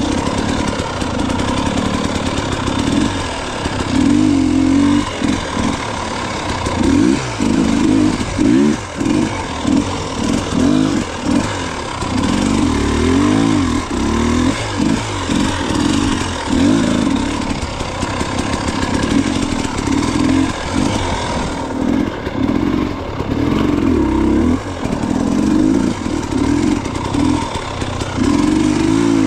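Dirt bike engine running under constantly changing throttle, its note rising and falling again and again as the rider works the throttle on and off.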